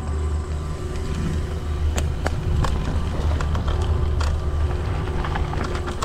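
Mountain bike rolling down a dirt and gravel trail: a steady low rumble of tyres and wind on the helmet camera, with scattered sharp clicks and rattles from the bike over bumps.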